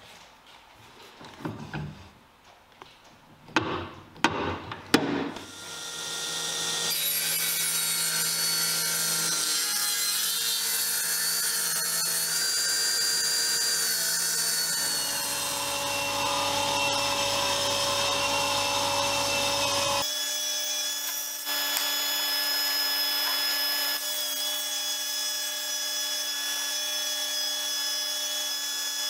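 A few knocks of wood being handled, then a power tool running steadily as it works wood. Its pitch shifts about halfway through and again a few seconds later.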